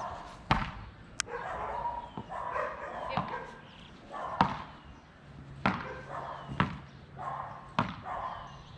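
Beach tennis paddles hitting the ball back and forth in a rally: a sharp pock roughly every second, some hits louder than others.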